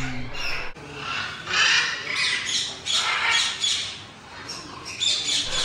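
Many caged parakeets and conures squawking, short harsh calls overlapping one another, easing off for a moment about four seconds in.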